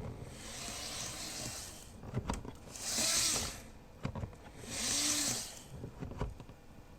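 Handling noises from unpacking a model train set: a few light knocks and two short rustling or sliding swishes, about two seconds apart.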